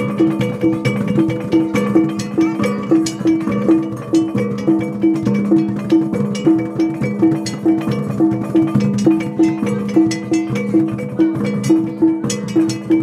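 Percussion music of pitched struck instruments and drums: a tuned note struck in a fast steady pattern, about three strokes a second, over lower held tones and sharp drum hits, accompanying a traditional dance.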